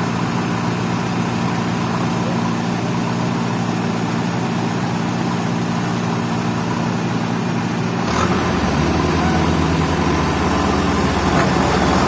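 Diesel engine of a JCB 3DX backhoe loader running steadily. About eight seconds in it deepens and grows a little louder.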